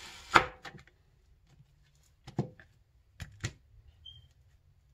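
Kitchen knife cutting down through an onion and knocking on the cutting surface: one sharp knock about a third of a second in, then a few lighter knocks and taps around two and three seconds in.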